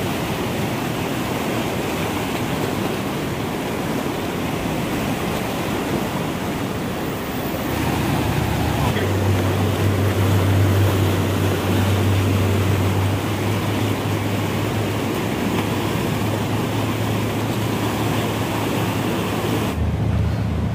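Whitewater river rapids rushing steadily. A low rumble joins about eight seconds in, and the sound turns duller near the end.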